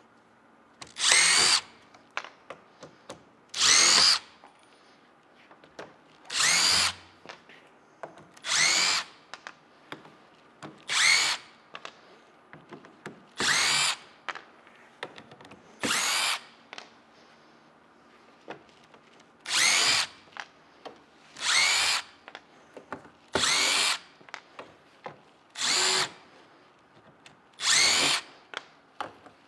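Cordless power driver backing Phillips-head screws out of a shipping crate lid: about a dozen short whirring runs, each under a second, one every two seconds or so, with light clicks between them.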